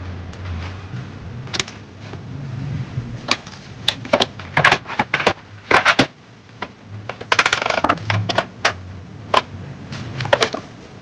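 Irregular sharp clicks and knocks of hard wooden pieces being handled and fitted together, with a brief scraping rustle about two-thirds of the way in.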